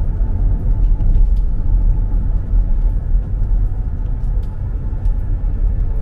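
Car driving along a paved street, heard from inside the cabin: a steady low road and engine rumble.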